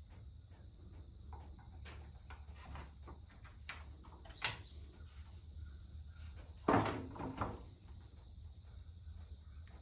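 Irregular light knocks and clicks of objects being handled, with a sharp knock about four and a half seconds in and a louder clatter near seven seconds, over a low steady hum.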